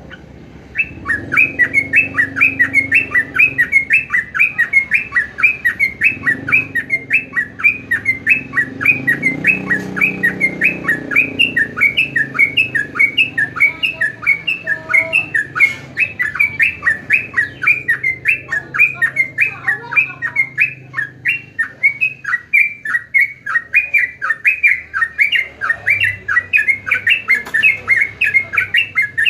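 A jogjog bulbul singing: a long unbroken run of short, quickly repeated chirping notes, about three or four a second.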